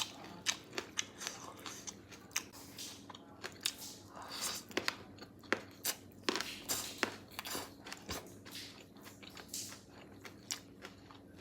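Close-up chewing and crunching of food in a person's mouth: irregular crisp crunches and wet chewing sounds with short pauses between them.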